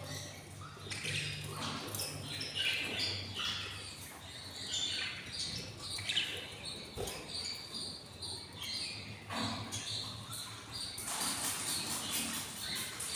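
Hungry budgerigar chicks begging in the nest: a busy run of short chirps and squeaks, with a denser burst of chattering near the end.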